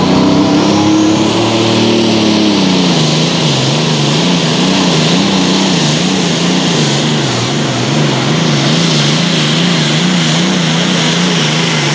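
Allis-Chalmers super stock pulling tractor's engine running flat out under load. Its pitch climbs at first, drops about two and a half seconds in, then wavers quickly up and down, a little under twice a second.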